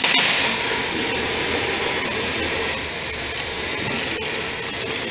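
Steady rushing noise of a running machine, with a few faint clicks.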